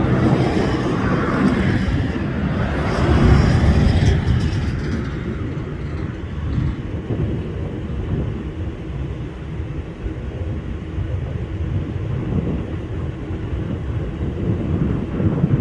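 Cessna 172B's six-cylinder piston engine and propeller droning past overhead, loudest in the first four seconds or so, then fading to a steady low rumble as the plane moves away.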